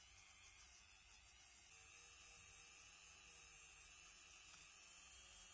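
Dremel rotary tool running at a steady speed, its small polishing wheel buffing a brass lamp burner, heard as a faint steady hum and buzz.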